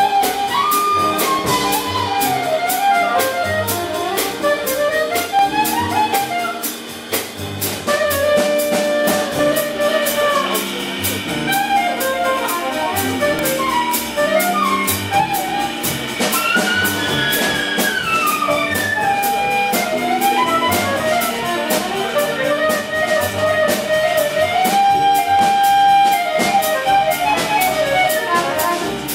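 Jazz big band playing an arrangement of a Hakka folk tune: saxophone and brass melody lines over sustained chords, with a steady cymbal beat from the drum kit.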